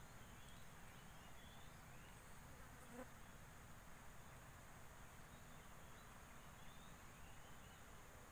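Near silence: a faint steady hiss with a few faint, short high chirps and a single soft click about three seconds in.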